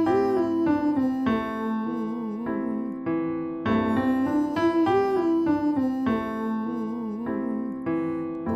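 Sung vocal riff over sustained electric piano chords: a quick, ornamented run that bends up and down, repeated about every four seconds as a riffs-and-runs exercise pattern.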